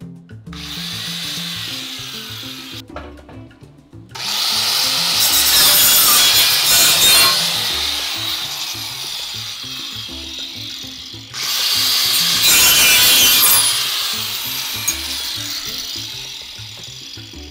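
Handheld angle grinder cutting into aluminum, in three bouts: a short cut near the start, a long loud one from about four seconds in, and another after a brief break around eleven seconds that tapers off toward the end.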